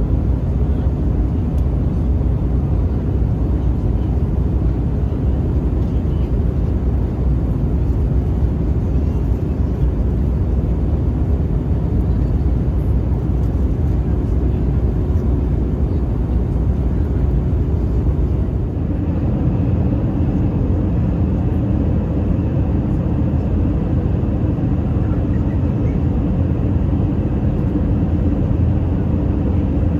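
Steady cabin roar inside an Airbus A320 descending to land, from engine and airflow noise. About nineteen seconds in, the sound shifts and a faint higher whine joins it.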